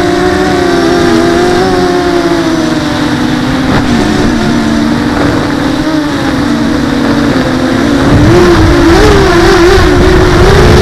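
Hovership MHQ2 quadcopter's 2200 kV brushless motors and Gemfan 5040 props buzzing, the pitch wavering up and down as the throttle shifts. Low wind rumble on the microphone grows louder about eight seconds in.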